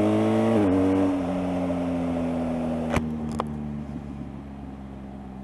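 Motorcycle engine through a newly fitted Akrapovič exhaust. The engine note steps just under a second in, as with a gear change, then slowly falls in pitch and gets quieter as the bike rolls off the throttle. One sharp click comes about three seconds in.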